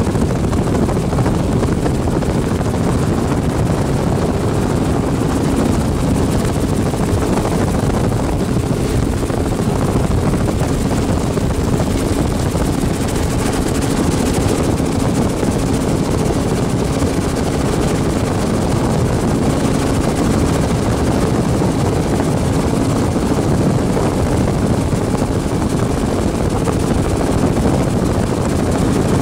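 Helicopter in flight, its rotor and engine running steadily with an even drone.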